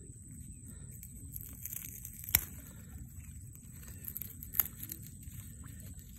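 Low rumble of wind on the microphone with a faint steady high hum, broken twice by a sharp click about two seconds apart.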